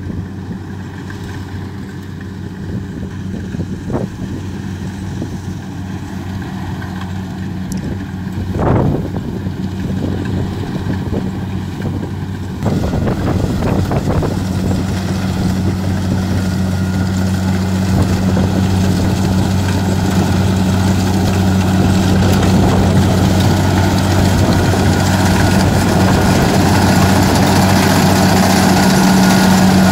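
Kubota DC-105X rice combine harvester running steadily, its diesel engine a constant low hum, while it cuts and threshes rice. There is a brief whoosh about nine seconds in, and from about twelve seconds in the machine sounds louder and hissier.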